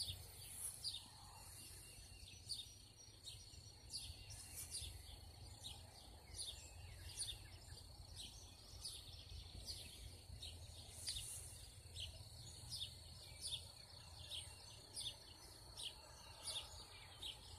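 Faint dawn chorus: songbirds chirping in many short, high calls scattered throughout, over a steady low hum.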